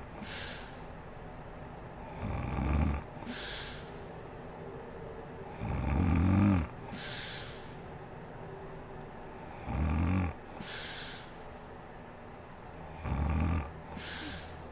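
A sleeping woman snoring: a low snore about every three and a half seconds, four times, each followed by a short breathy puff of air.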